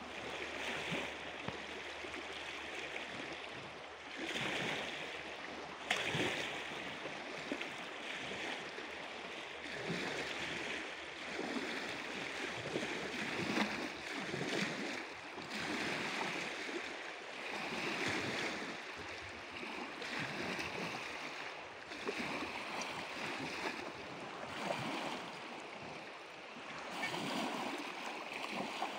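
Water lapping and splashing, swelling and easing every second or two.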